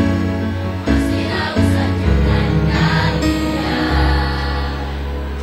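Mixed choir of boys and girls singing with musical accompaniment and a deep bass. From about four seconds in they hold one long chord that slowly gets quieter.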